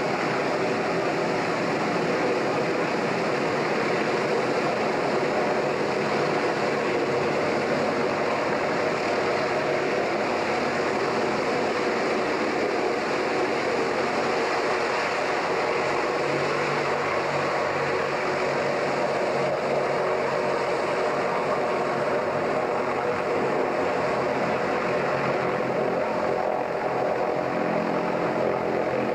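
Steady, unbroken drone of a passenger ferry's engines and hull running underway, heard inside the passenger cabin.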